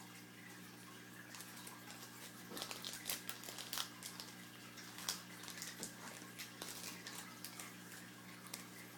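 Foil trading-card pack being torn open and the cards handled, a run of light crinkles and clicks over a faint steady electrical hum.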